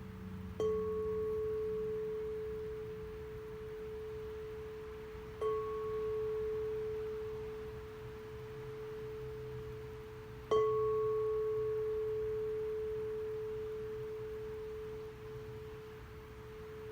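A sound-healing instrument struck three times, about five seconds apart. Each strike gives a short click and then one pure, steady mid-pitched tone that rings on and slowly fades. A brief higher overtone dies away within a second or two after each strike.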